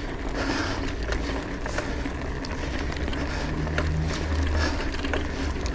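Raider Z3X Pro 29-inch mountain bike rolling over a cobblestone street: a steady low rumble from the tyres, with many small clicks and rattles from the bike as it crosses the stones.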